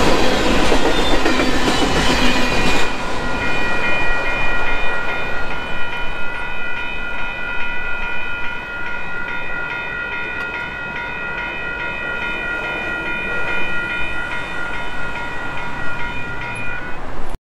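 Freight train boxcars rolling past with wheel clatter, the last car clearing about three seconds in; after that, a railroad crossing bell ringing steadily.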